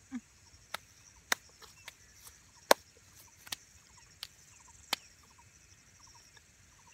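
Close-up mouth sounds of eating: several sharp lip smacks and clicks while chewing, about five spread over the first five seconds. Behind them, a steady high insect buzz with faint chirps.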